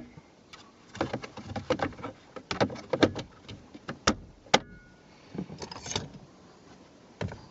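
Irregular sharp clicks and knocks of hard small parts and tools being handled against car interior trim, densest in the first few seconds, with a few more later and one near the end.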